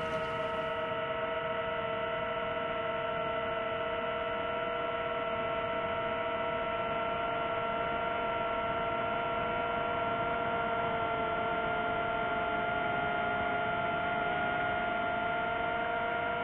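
FPV quadcopter drone's motors and propellers, a steady hum of several tones at once that shift slightly in pitch near the end.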